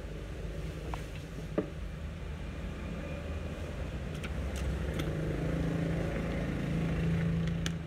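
A few light clicks and ticks of copper winding wire and tools being handled, over a low steady rumble and hum that grows louder in the second half.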